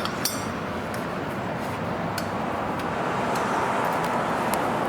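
Steady background noise of a workshop, with a few light clicks scattered through it.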